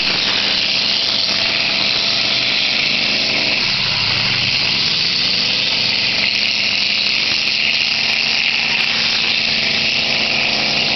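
Loud static-like hiss from wind on the microphone over a heavy engine running steadily, its pitch shifting about three and a half seconds in.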